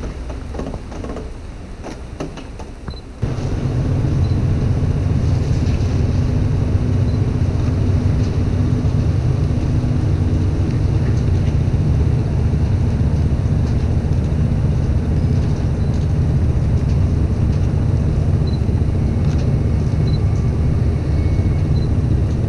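Soft crinkling and handling of a clear plastic bag wrapped over the camera. About three seconds in, a loud, steady low rumble of city street noise cuts in suddenly and continues unchanged.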